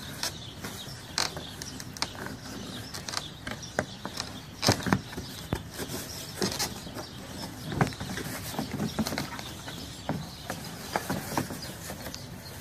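Large cardboard shipping box being handled and opened by hand: irregular scrapes, rustles and sharp knocks of cardboard as flaps and lid are pulled and the box is shifted.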